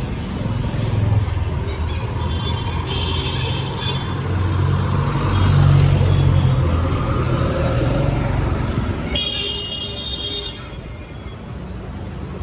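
Street traffic: a steady low vehicle engine rumble with vehicle horns honking, once about three seconds in and again for about a second near the end.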